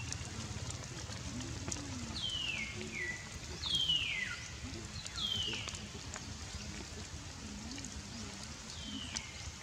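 A bird giving several clear whistled calls, each sliding down in pitch over about half a second, the loudest about four seconds in. Faint ticks of rain drops fall against a steady low rumble of background.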